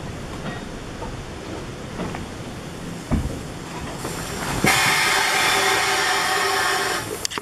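Steam locomotive whistle blowing once, a steady call of about two seconds starting about two-thirds of the way in. Before it there is a steady low rumble from the narrow-gauge carriage and a single knock.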